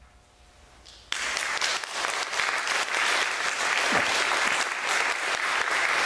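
After about a second of hush, an audience breaks into applause all at once and keeps clapping steadily.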